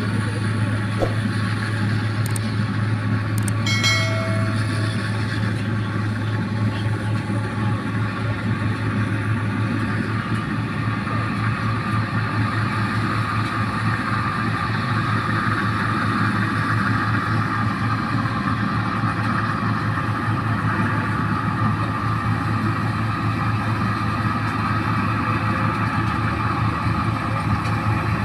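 New Holland 1545 combine harvester running steadily as it cuts through ripe paddy, its diesel engine and threshing machinery making a constant low drone.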